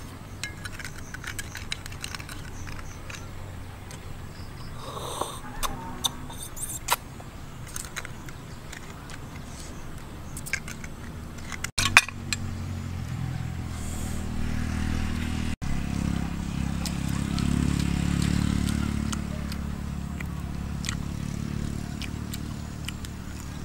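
Eating sounds: chewing and small clicks of a fork against food in the first half. From about halfway through, a low engine drone swells, is loudest a few seconds later, then fades.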